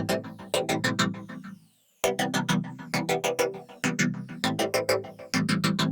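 Electronic background music with a synthesizer and a fast, steady beat; it drops out briefly about two seconds in, then starts again.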